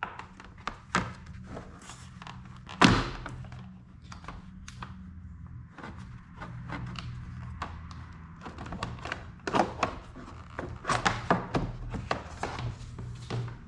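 Hands-on disassembly noise on an ATV: scattered clicks, knocks and clatter of parts and tools being handled, with one loud thunk about three seconds in and a busier run of knocks in the second half, over a steady low hum.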